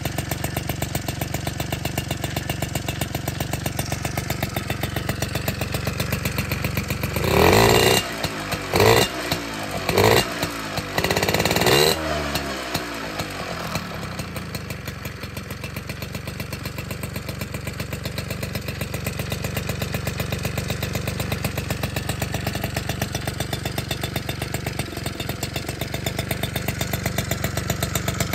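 Yamaha Champ LC50's two-stroke single, bored out to 60cc and fitted with a PW50 carburettor and 90 main jet, idling steadily, then revved four times in quick succession about seven to twelve seconds in before dropping back to a steady idle.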